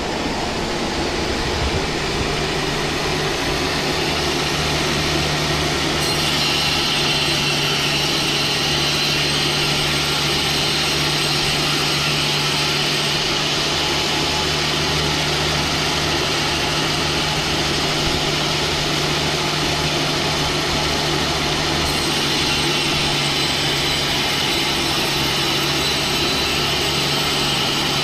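Sawmill saw cutting through a log, its motor running at a steady pitch under a continuous rasping cut. The cutting noise grows harsher about six seconds in and eases back a few seconds before the end.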